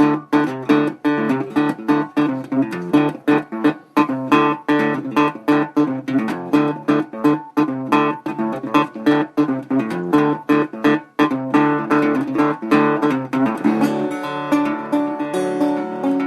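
Acoustic guitar playing an instrumental blues passage, chords struck in a steady rhythm about two and a half times a second. About fourteen seconds in, the sharp strikes give way to notes ringing on more smoothly.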